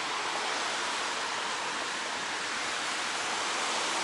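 Rain falling: a steady, even hiss with no distinct events.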